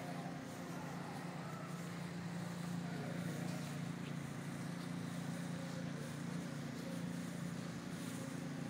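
An engine running steadily at an even speed, a low hum that holds the same pitch throughout.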